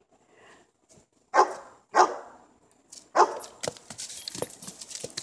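German Shepherd barking three times in play, then quick scuffling footfalls on dry leaf-covered dirt as she runs off.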